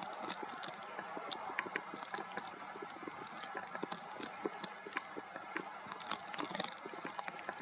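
Martins calling with short, scattered chirps over a steady background hiss, mixed with many small clicks.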